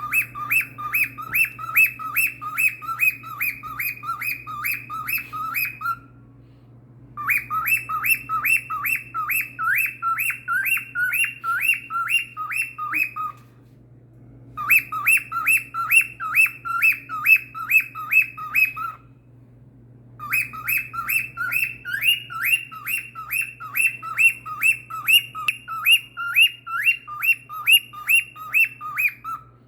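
Pet cockatiel calling in rapid, repeated chirps, about three or four a second, each note sliding down in pitch. The chirps come in four long bouts with short pauses between them.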